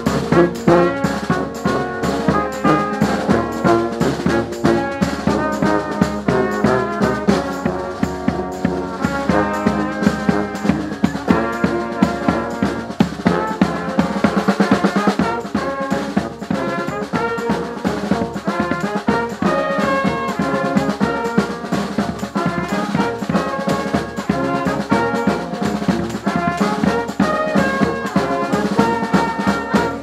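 Street brass band playing a tune: sousaphone, saxophone and horns over busy, steady drumming on marching drums and a bass drum. The music stops abruptly at the very end.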